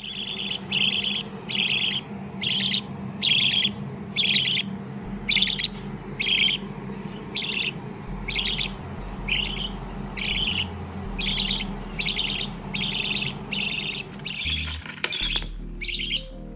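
Budgerigar chirping over and over in short, sharp calls, about one and a half a second, over background music with a low bass line.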